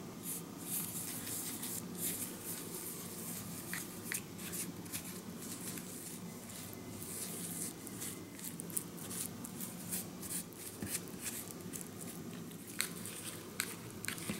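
Small plastic spoon stirring and scraping powder and water into a paste in a plastic snack-kit tray: quick, irregular scrapes with a few light clicks, over a steady low hum.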